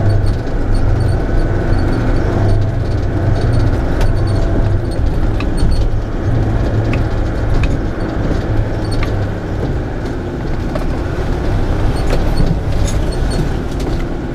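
Vehicle engine running steadily with a low hum, with scattered short knocks and rattles as it drives.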